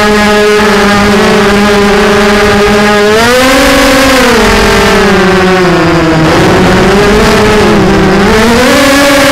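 Brushless motors and propellers of a Vortex 250 Pro FPV racing quadcopter (Lumenier 2206 2350Kv motors) whining loudly, heard from the camera on board. The pitch holds steady, rises about three seconds in, sinks with a couple of dips, then climbs again near the end as the throttle changes.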